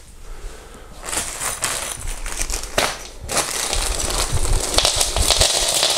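Clear plastic bag of cabinet fittings being handled by hand, its plastic crinkling and rustling, starting about a second in and growing denser in the second half.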